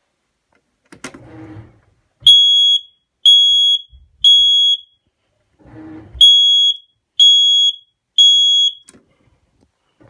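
Household smoke alarm sounding during a test: two groups of three loud, steady, high-pitched beeps about a second apart, with a short pause between the groups. This is the three-beep evacuation pattern.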